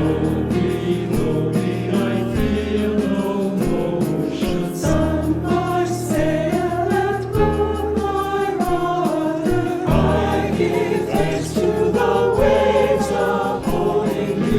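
A choir singing with instrumental accompaniment, the voices coming in right at the start over sustained low notes.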